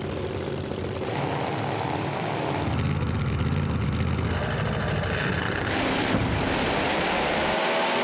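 Drag race car engines at full throttle, launching and running down the drag strip, the pitch rising near the end.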